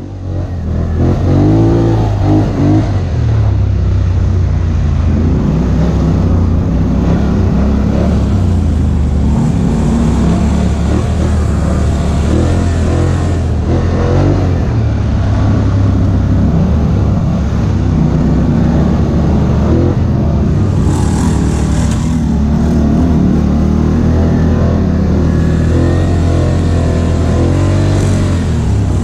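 ATV engine running under way, its pitch rising and falling as the throttle is opened and eased off.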